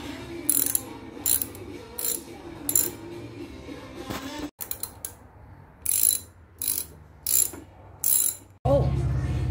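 Ratchet wrench clicking in short runs, roughly one run every 0.7 seconds, as the front brake caliper mounting bolts are loosened. Near the end the sound cuts to a steady low hum.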